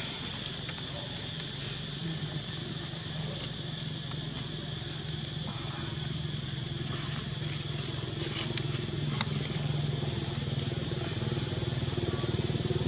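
A small engine running steadily nearby, its low drone growing a little louder near the end, over a steady high hiss, with a few faint clicks.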